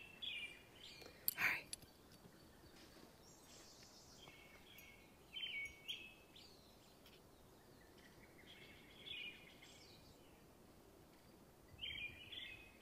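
Wild birds chirping faintly, short calls scattered every few seconds over quiet outdoor air. A single brief click about a second and a half in.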